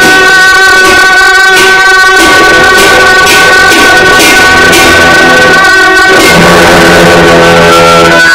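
Music: sustained melodic tones over a steady beat of short percussive strokes.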